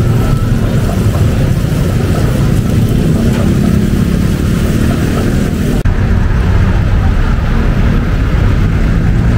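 Street traffic: motor vehicle engines running close by as a steady low hum, with general street noise over it. The higher noise drops off abruptly about six seconds in.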